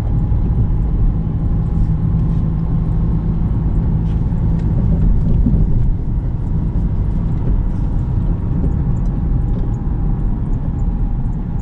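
Steady rumble of a car heard from inside the cabin, with a faint steady whine over it.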